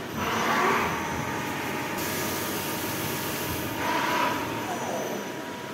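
CNC lathe running its program: the spindle turning and the slides making rapid traverse moves. A steady whine runs under two swells of machine noise, one right at the start and one about four seconds in.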